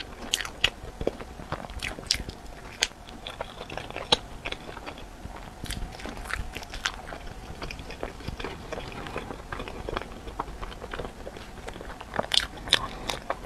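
Close-miked chewing and biting of a stuffed bread loaf, with many short crackles from the crust; a quick run of louder bites near the end.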